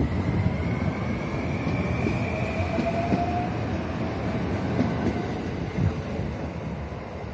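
JR West 521 series electric train pulling out and accelerating past, its inverter-driven motors whining with a slowly rising pitch over the rumble of the wheels on the rails. The sound fades as the last car goes by.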